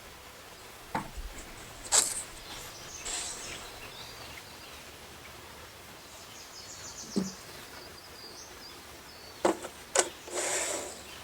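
Household objects being handled and set down: a few separate knocks and clicks, with short rustling swishes about three seconds in and near the end.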